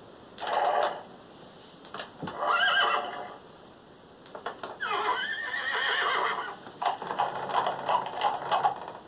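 Thinkway Toys Toy Story Collection Bullseye toy horse playing recorded horse whinnies and neighs from its built-in speaker as it is pressed. There is a short one about half a second in and another near three seconds, then a long whinny that slides in pitch from about five seconds, followed by a choppier run of sounds near the end.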